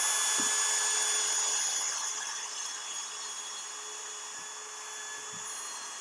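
Cordless drill running at a steady speed with a constant whine, boring an 11/64-inch pilot hole up through ceiling drywall into a wooden joist.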